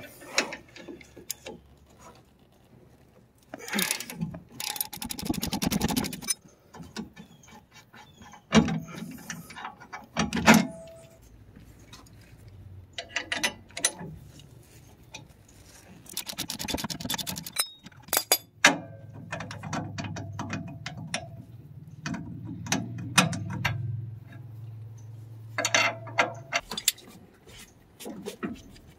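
Hand ratchet clicking in several quick runs while the rear shock absorber's mounting bolts are backed out, with sharp metallic clinks of wrenches against the bolt hardware between the runs.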